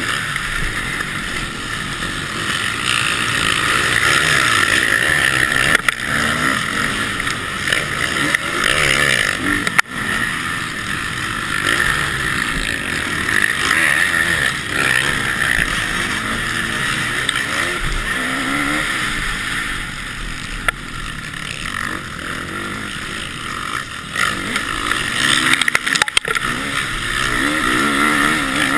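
KTM motocross bike's engine racing at full throttle, its pitch rising and falling over and over with gear changes and throttle, heard close up from the bike with a hard rush of noise over it and a few sharp knocks.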